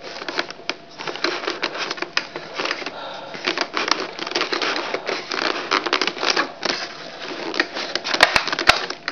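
Plastic being crinkled and handled close to the microphone: rapid, irregular clicks and crackles, with a few sharper clicks near the end.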